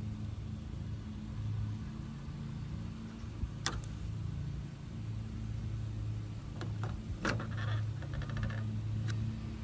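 Steady low motor hum, with two sharp clicks and a brief crackling rustle near the end.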